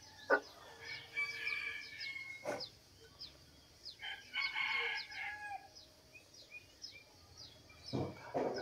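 A rooster crowing twice, the first crow about a second in and the second about four seconds in, over the steady chirping of small birds. Two sharp clicks come just after the start and about two and a half seconds in.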